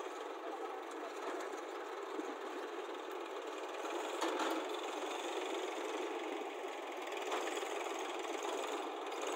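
Diesel engines of a JCB backhoe loader and a Massey Ferguson 241 tractor running together, a steady engine noise. There is a brief louder knock about four seconds in.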